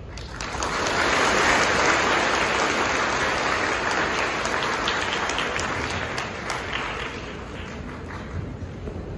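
Audience applauding. The clapping rises quickly in the first second, then slowly fades over the last few seconds.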